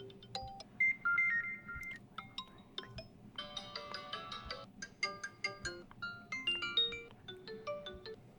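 Built-in Redmi Note 7 ringtones being previewed one after another: short, bright, clearly pitched melodies that change tune every second or two.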